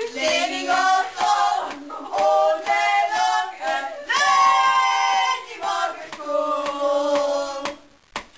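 Several voices singing together in a comic chant, with long held notes, stopping abruptly near the end.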